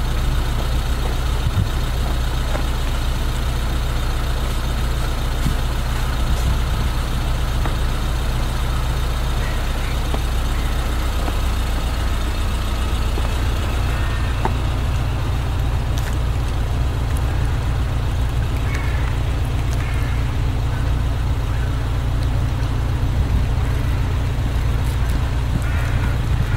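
Steady, unbroken rumble of city traffic mixed with low wind noise on the microphone.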